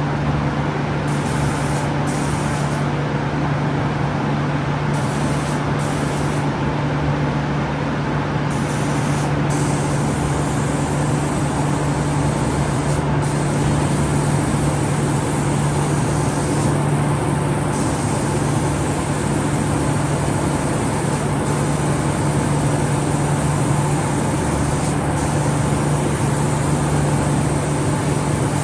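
Automatic CNC door spray-painting machine running: a constant low hum under an even hiss of air, with no breaks.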